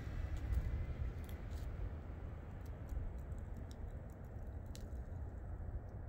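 Snowstorm ambience: a low, fluctuating rumble with scattered faint, light clicks.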